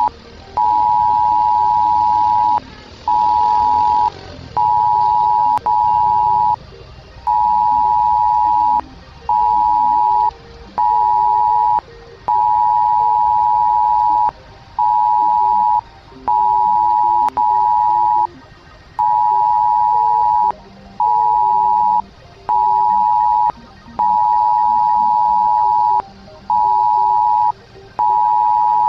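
Emergency alert attention signal: a loud two-tone beep near 1 kHz, pulsing on and off in an uneven pattern of long and short tones, with fainter lower tones beneath.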